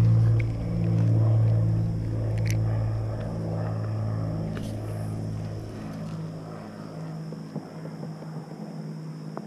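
Low steady drone of a distant engine with a pulsing beat, fading away over the last few seconds. A couple of faint clicks partway through.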